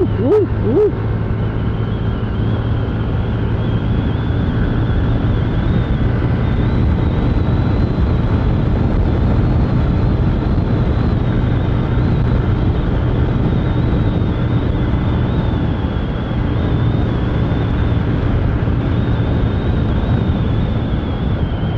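Honda motorcycle cruising on the highway at about 90 to 105 km/h: the engine drones steadily under heavy wind rush on the phone's microphone, with a faint high whine wavering above it.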